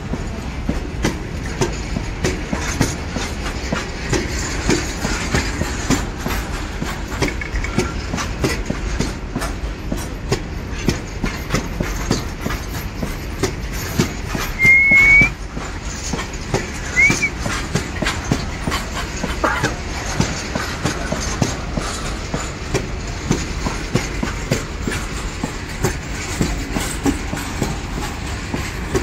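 Freight train of open-top box wagons rolling past close by: a steady rumble with the wheels clattering over the rail joints. About halfway through there is a brief, loud, high squeal, and a shorter one a couple of seconds later.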